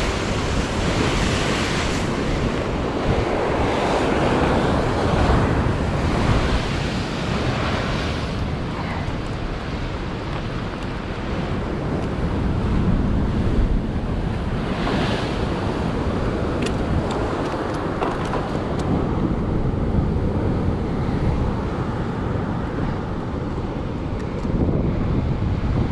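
Sea surf washing against the shore, with wind buffeting the microphone, and a few faint clicks in the middle of the stretch.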